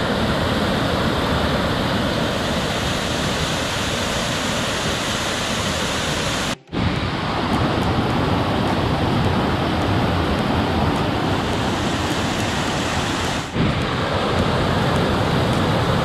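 Whitewater cascades rushing over travertine steps, a loud, steady rush of falling water. It drops out for a moment about six and a half seconds in and dips briefly again near the end, where the shots change.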